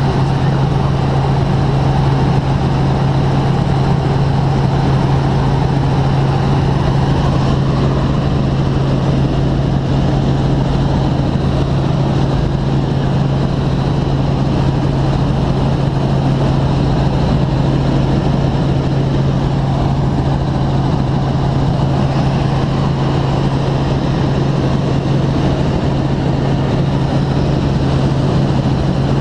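Helicopter engine and rotor noise heard inside the cabin in flight: a loud, steady drone with a strong low hum.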